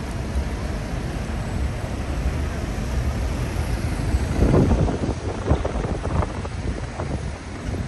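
Busy city street ambience: traffic rumble with wind buffeting the microphone, swelling louder about halfway through.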